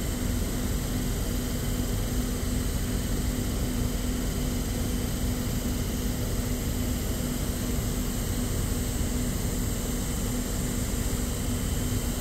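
Sydney Trains K set double-deck electric train at the platform, giving a steady hum with a constant low tone over an even rush of air noise.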